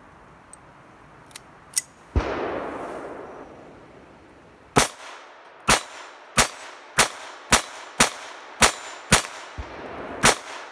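Phoenix Arms HP22A .22 LR pocket pistol firing a string of about nine shots, roughly one every half second to second, starting a little under halfway through. Before that, a few light clicks of the pistol being handled and a sharp crack about two seconds in followed by a rush of noise.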